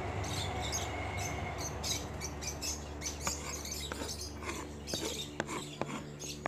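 A large kitchen knife works chopped onion on a wooden cutting board. The blade scrapes the pieces across the board, then lands with several sharp taps in the second half.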